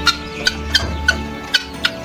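Background music: sustained held tones with a steady ticking beat, about three clicks a second.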